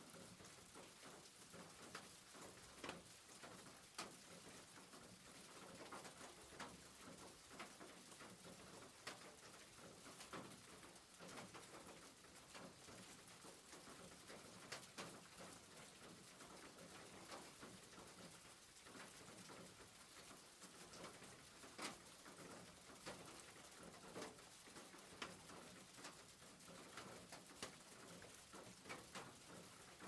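Rain falling on a roof: a faint, steady hiss with irregular, sharper taps of single drops striking.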